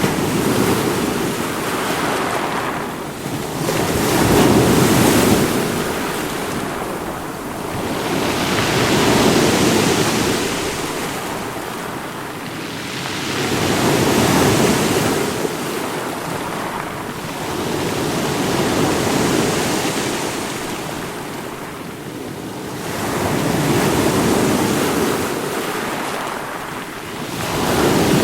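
Water rushing in slow waves, a steady wash that swells and fades about every five seconds, like surf breaking on a shore.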